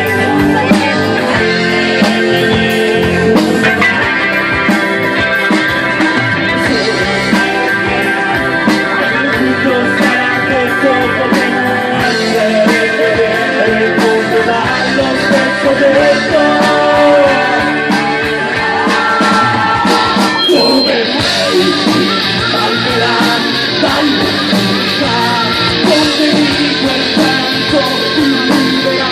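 Rock band playing live, a passage without vocals led by guitar over drums and bass, with pitch-bending guitar lines in the middle; about twenty seconds in the sound turns brighter.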